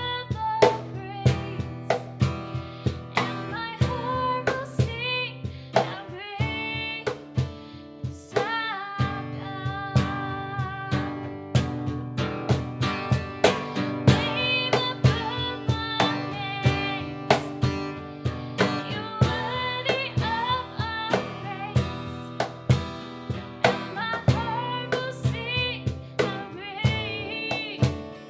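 Instrumental music: guitar played with drums keeping a regular beat under a wavering melody line.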